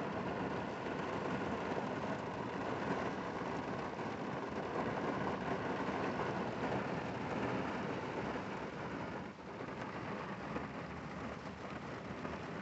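Rain falling on a car's roof and windows, heard from inside the cabin as a steady hiss, with the car's engine and road noise underneath. It eases briefly about nine seconds in.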